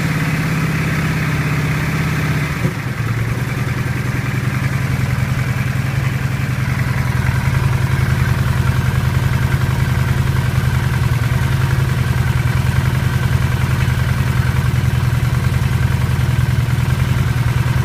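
Engine idling with a fast, even knocking pulse in its note. About three seconds in the note dips briefly and settles lower, then runs on steadily.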